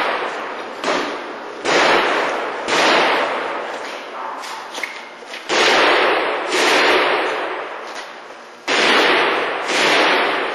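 Heavy blows from a steel tool on a smash-proof security display case, about seven strikes at an uneven pace with a pause midway. Each blow rings and dies away over a second or so.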